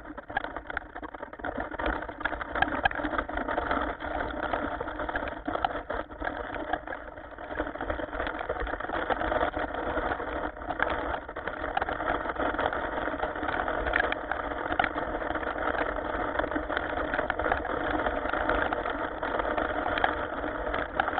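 Heavy rain falling, a dense steady patter that builds over the first couple of seconds and then holds.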